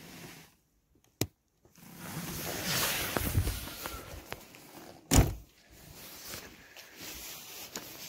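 Handling noise and shuffling, then a single loud thunk about five seconds in, the sound of the Citroën 2CV's door being shut, with footsteps on gravel after. A sharp click comes about a second in.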